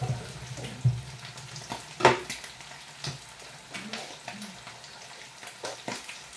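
Liver frying in a pan and sizzling steadily, with a few sharp knocks and clatters from the kitchen. The loudest knock comes about two seconds in.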